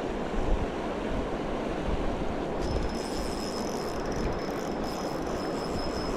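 Steady rushing noise of wind and moving water. A faint, steady high whine joins it about two and a half seconds in.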